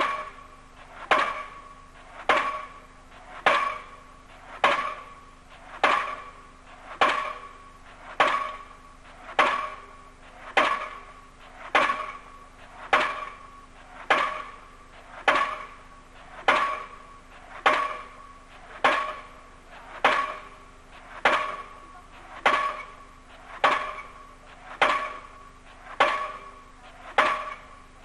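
Diesel pile hammer on a crane-mounted leader driving a foundation pile: one hard, ringing metallic blow a little under once a second, steady and even throughout.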